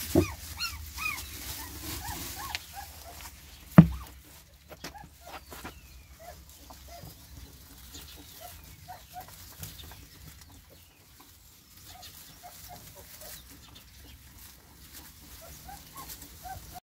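Newborn border collie–Spanish mastiff puppies squeaking and whimpering in short, high cries, one or two a second, while they nurse. A sharp knock about four seconds in.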